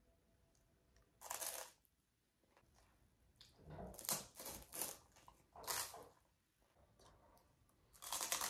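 A person biting and chewing a crunchy snack close to the microphone, in a few short bursts of crunching with pauses between.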